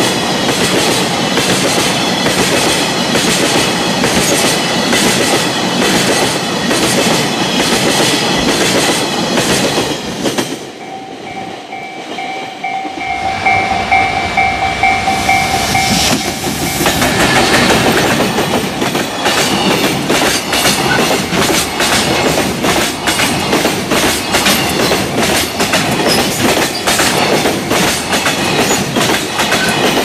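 Freight wagon wheels clattering hard over the rail joints at a level crossing as a train of tank wagons rushes past. About ten seconds in it cuts to a quieter spell where the crossing's warning bell rings steadily, then a container freight train arrives and its wheels clatter loudly over the joints again.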